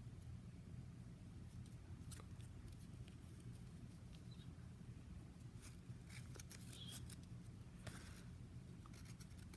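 Faint crinkling and clicking of a trading-card pack's wrapper being opened and its cards handled, busiest around the middle to the end, over a low steady hum.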